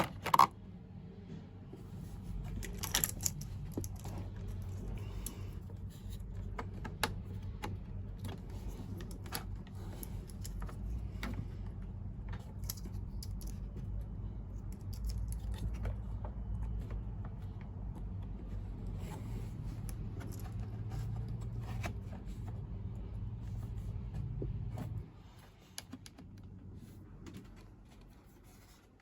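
A motor running with a low steady hum that starts about two seconds in and cuts off suddenly about 25 s in, with light clicking and rattling over it.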